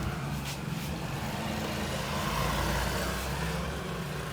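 Street traffic: a motor vehicle's engine rumble swelling as it passes, loudest past the middle, then easing off.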